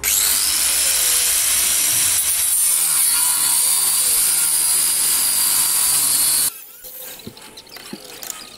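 Electric angle grinder cutting through steel on a car's underbody, a steady high whine that runs for about six and a half seconds and then cuts off suddenly.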